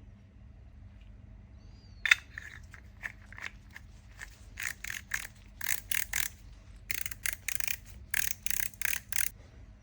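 Small metal parts being fitted by hand: a sharp click with a brief metallic ring about two seconds in, then many quick clicks and clinks in clusters, as ball bearings are pressed into a 3D-printed tattoo pen frame.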